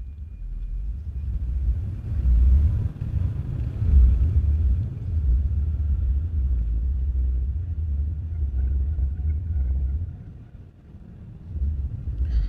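Wind buffeting the headset microphone of a rider on a moving e-bike: a low, rumbling blast that swells and fades, easing briefly near the end.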